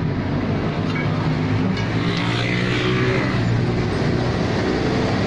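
A motor vehicle's engine running steadily, with a swell of louder noise about two to three seconds in.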